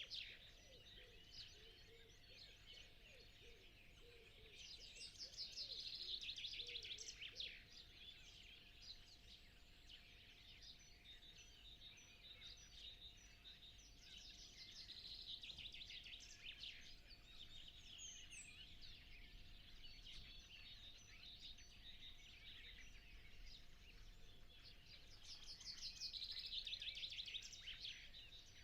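Faint dawn chorus of songbirds in spring countryside. One bird repeats a fast trilled song phrase about every ten seconds, each lasting a couple of seconds, with softer chirps from other birds in between.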